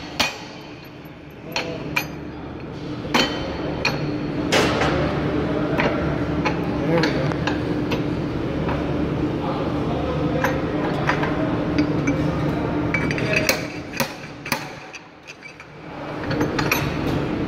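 Irregular sharp metallic clinks and knocks from a heavy-truck Eaton Fuller transmission's input shaft and bearing as they are worked back and forth into the case to seat the bearing, over a steady hum.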